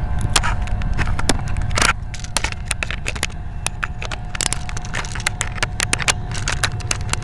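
Camera and tripod handling noise: a run of sharp clicks and knocks over a steady low rumble.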